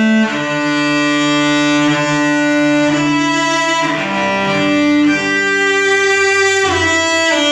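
Slow music on bowed string instruments, cello and violin, playing long held notes that change pitch every second or two in a legato melody.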